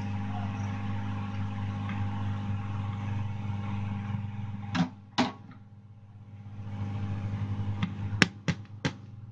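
Hot-air rework blower running with a steady fan hum and air hiss while heating the solder on a phone's charging-port board. It stops about five seconds in after two sharp clicks, comes back up, and several sharp clicks and taps of tools on the board follow near the end.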